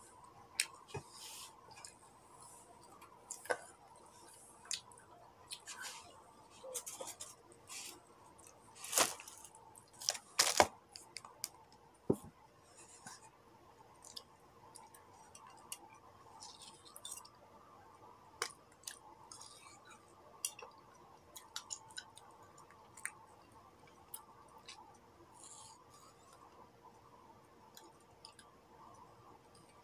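A person biting and chewing soft, wet fruit: scattered soft smacks and clicks of mouth and hands, with two louder clicks about nine and ten and a half seconds in, over a faint steady hum.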